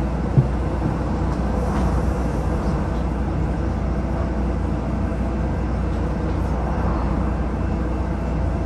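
Inside a moving bus: a steady rumble of engine and road noise, with one sharp knock about half a second in.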